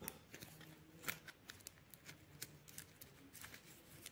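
Faint scattered clicks and rustles of hands handling the coiled cable of a Boya clip-on microphone.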